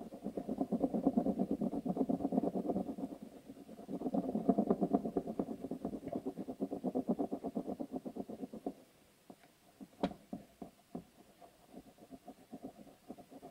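Blue pencil rubbed rapidly back and forth over paper laid on a R$1 coin, a fast, even scratching as the coin's relief is rubbed through. It stops about nine seconds in, leaving a few light clicks, then faint strokes come back near the end.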